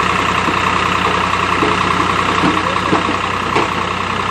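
A vehicle engine idling steadily with an even hum.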